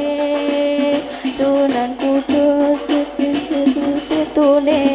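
Rebana ensemble playing a sholawat song: frame drums beating a rhythm under a sustained melody that steps between long held notes.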